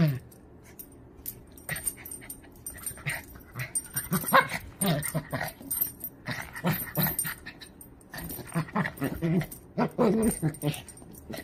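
Small dog making short growls and whines in irregular bursts, a string of them from about four seconds in and again near ten seconds, as it plays with a hand.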